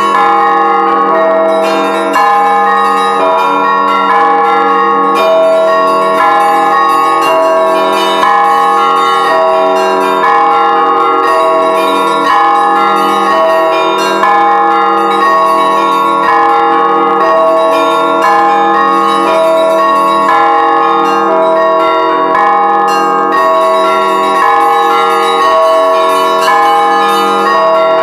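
Several church bells of different pitches ringing together in a continuous peal. The strikes overlap, and one bell sounds about once a second over the sustained hum of the others.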